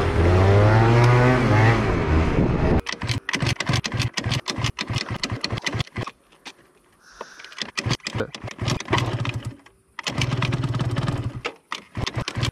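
Moped engine running under way, its pitch rising and falling, for the first three seconds or so. Then broken crackling and knocking with quiet gaps, and the low engine hum comes back for about a second near the end.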